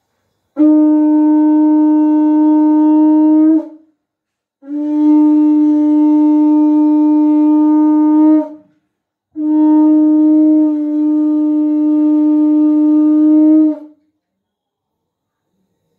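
Conch shell (shankha) blown in three long, steady blasts of about three to five seconds each, the last the longest: the conch sounded for the Bengali Hindu evening ritual (sandhya).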